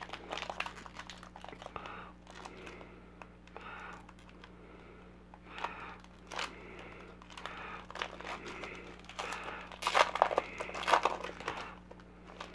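Foil wrapper of a Panini Contenders football card pack crinkling as fingers work its crimped seam, then tearing open with a louder run of crackles near the end.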